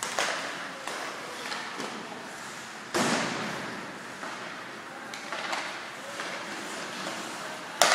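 Hockey pucks and sticks cracking against each other and the boards, echoing through a large, empty ice rink. The loudest crack comes about three seconds in, another comes near the end, and smaller clacks fall in between.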